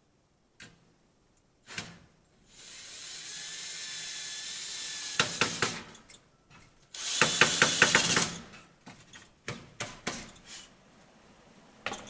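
Ryobi cordless drill driving screws into a wooden board: a steady whirring run of a couple of seconds that ends in quick clicks, then a louder, shorter run with rapid rattling clicks. Small knocks of handling come before and after.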